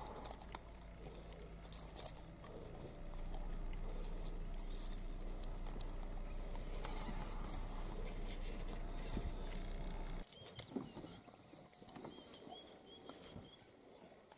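Low steady hum of an idling vehicle engine, with scattered sharp clicks. About ten seconds in the hum stops and a bird chirps repeatedly.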